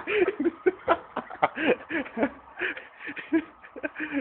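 Men laughing in quick repeated bursts with breathy exclamations.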